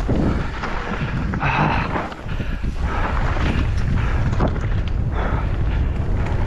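Wind buffeting a helmet- or bike-mounted camera's microphone during a mountain bike descent, with the bike rattling and knocking repeatedly as it runs over rough ground.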